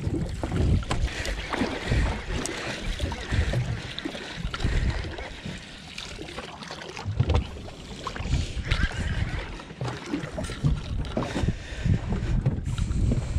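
Gusty wind buffeting the microphone on a small open fishing boat, an uneven low rumble. Scattered clicks and knocks come from fishing gear being handled on deck.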